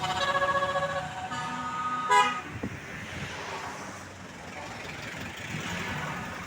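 Tour bus's Basuri telolet multi-tone air horn playing a short stepped tune of several notes, ending with a loud final note a little over two seconds in. After it come only bus engine and traffic noise.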